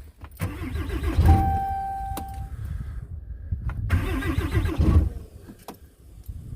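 Dodge diesel pickup engine being cranked twice in extreme cold: the starter turns it over strongly and the engine seems to catch, then dies, a failed cold start with the glow plugs not coming on. A dashboard warning beep sounds about a second in.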